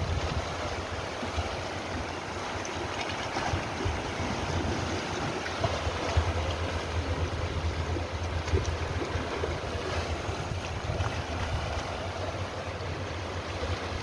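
Sea waves washing over and around shoreline rocks: a steady surf wash, with wind rumbling on the microphone underneath.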